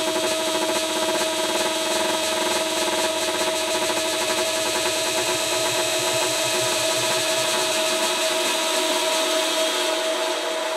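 Techno music in a breakdown: a steady, gritty, buzzing synth drone with held tones and little bass. It starts fading near the end.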